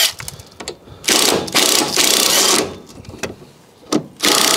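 Cordless impact wrench hammering a rear shock absorber bolt loose in two bursts: one about a second in lasting about a second and a half, and another starting near the end.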